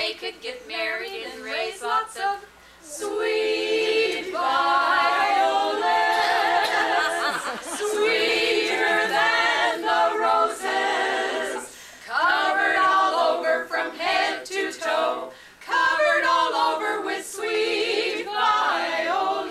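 A small group of voices singing a song together a cappella, in long held phrases with short breaks between them.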